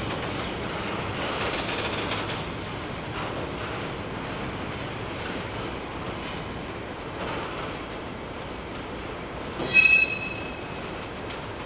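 Freight train of loaded timber wagons rolling past with a steady rumble. It gives two brief, high-pitched metal squeals, one about a second and a half in and a louder, many-toned one near the end.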